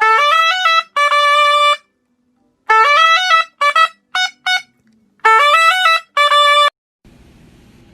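A trumpet playing short phrases that each climb in quick steps to a held note. There are three such phrases, with a run of short detached notes between the second and third, and the music stops cleanly near the end.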